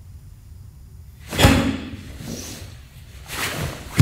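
Bare feet stamping on a hardwood floor during a karate kata in horse stance: one sharp thump about a second and a half in and a softer one near the end.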